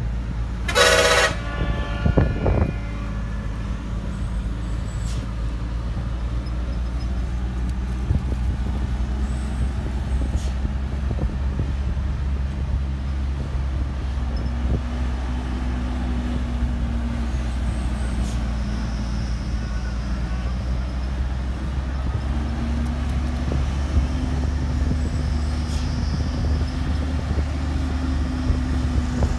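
A bus horn sounds a loud blast about a second in, followed by a shorter toot, then a bus's diesel engine runs with a steady low rumble, its note rising a little now and then.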